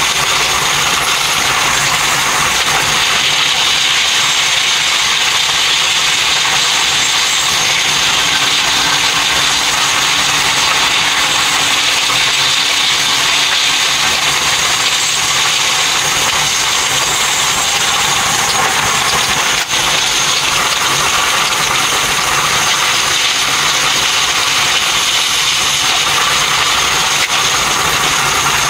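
Steady high rushing noise of a train running at speed, heard from inside the driving cab, with no clear rhythm.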